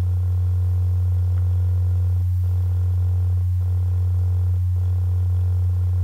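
Loud, steady low electrical hum, a single unchanging low tone, with faint hiss above it.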